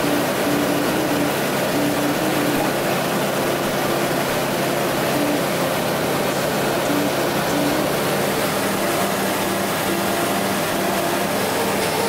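Steady drone of the Rans Coyote II light aircraft's engine, propeller and slipstream heard in the cockpit in level cruise flight.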